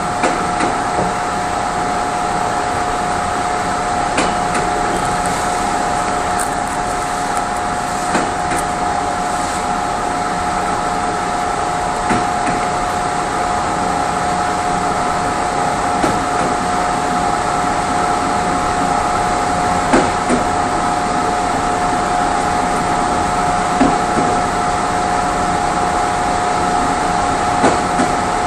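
Passenger coach of a Korean Mugunghwa-ho train running slowly on jointed track, heard from inside the rear of the last car: a steady hum with two held tones, and a click of the wheels over a rail joint about every four seconds.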